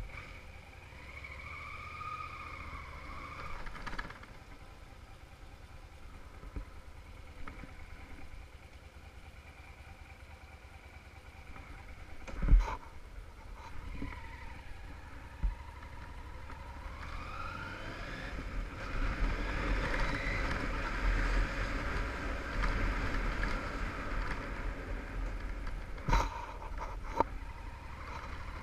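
2001 Yamaha TDM850's parallel-twin engine riding and accelerating, its pitch rising with the revs about a second in and again from about 16 seconds, with wind rushing over the microphone growing louder in the second half. A single sharp thump comes about halfway through.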